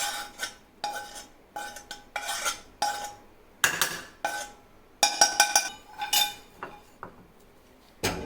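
A spoon scraping and knocking against a bowl in a string of sharp clinks, some ringing briefly, as roasted spices are scraped out and transferred. The loudest cluster of knocks comes just past the middle.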